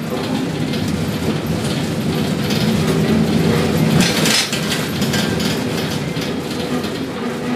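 Container gantry crane machinery running: a steady mechanical hum at several pitches with a rattling, clattering noise over it, swelling about three to four seconds in.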